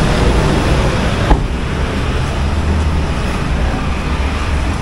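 Motor vehicle and road traffic noise: a steady low engine rumble under a loud hiss. About a second in there is a single sharp knock, and the hiss is quieter after it.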